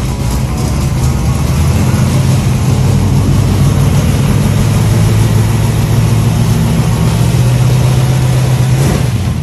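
1972 Dodge Demon's 408 cubic-inch stroker V8 idling steadily.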